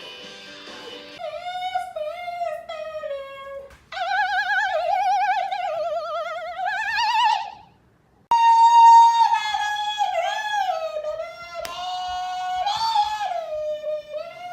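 Music: a single high melody line of held notes with wide vibrato. It breaks off briefly about a quarter of the way in, then stops dead just past halfway and comes back.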